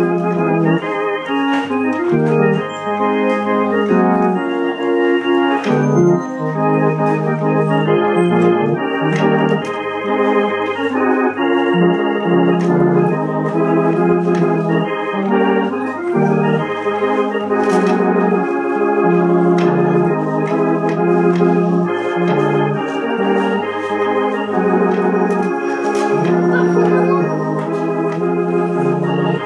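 Home organ being played: held chords that change every second or so over a moving bass line.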